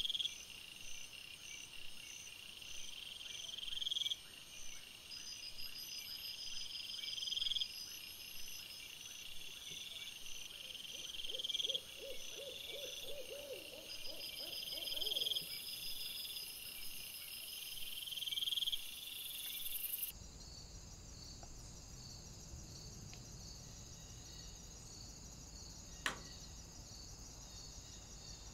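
Night insects calling: a high, shrill call that swells and breaks off about every three to four seconds, over steady fast ticking, with a short run of lower pulsed notes about halfway through. About two-thirds of the way in, the background changes abruptly to a steadier hum, and a single sharp click is heard near the end.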